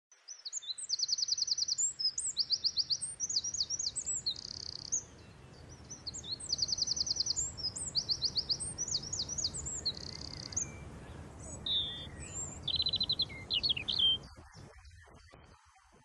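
A songbird singing high, fast trills and chirps in a song that comes twice over, then a shorter phrase, with a low rumble underneath. It fades out about fourteen seconds in.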